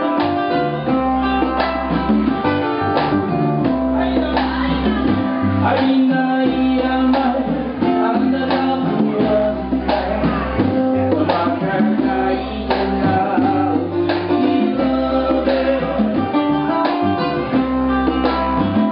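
Live band music: plucked ukulele over an electric bass line, with drums and congas, a steady repeating bass pattern.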